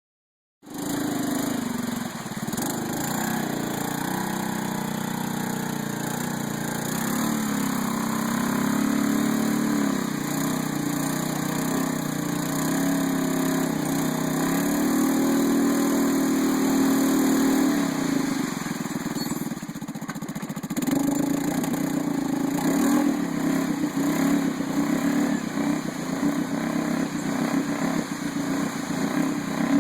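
Arctic Cat Prowler 650 side-by-side's single-cylinder engine running, its revs rising and falling. The engine eases off about two-thirds of the way through, then picks back up with quicker rev changes.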